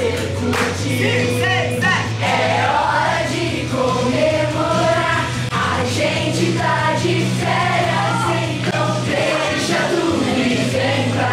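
Song from the film's soundtrack, a group of voices singing together over a steady bass line.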